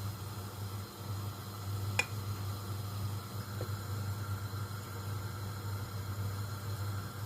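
Pancake batter cooking in an oiled frying pan: a steady soft hiss over a low hum, with one sharp click about two seconds in.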